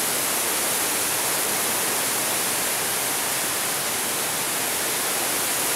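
Shallow stream water running over gravel and rocks, a steady rushing hiss.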